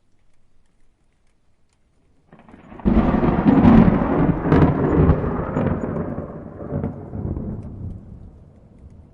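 A peal of thunder. It starts about two seconds in and breaks into a loud rumble with a few sharp cracks, then rolls away and fades over the next six seconds.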